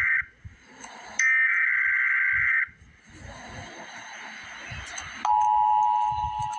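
Emergency Alert System signal: the end of one SAME digital header burst, then a full burst of about a second and a half starting about a second in. After a stretch of hiss, the steady two-tone EAS attention signal starts about five seconds in.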